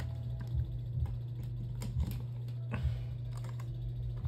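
Irregular clicks and knocks of hands working a Lasko oscillating fan's plug, cord and control knob, over a steady low hum.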